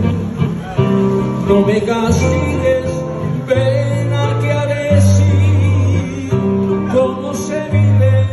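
Live romantic ballad: a man sings over a nylon-string acoustic guitar, with a steady bass line under it, the bass notes changing every second or so.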